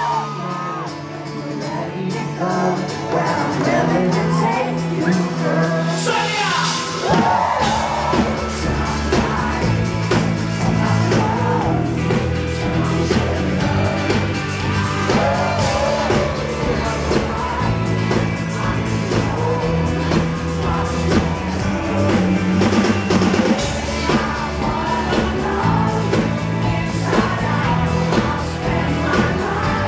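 Pop-rock band playing live, with a male lead singer's voice over the band. The bass and drums fill in about seven seconds in.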